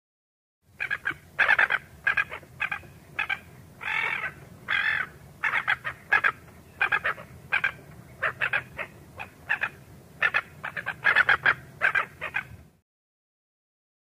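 Gull calling over and over: a long series of short calls, often in quick pairs and runs, with two longer drawn-out calls about four and five seconds in, over a low steady hum; the calling starts under a second in and stops near the end.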